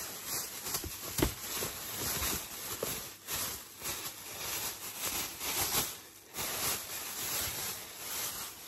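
Thin white plastic bag crinkling and rustling as it is pulled open and handled, with a sharp knock about a second in.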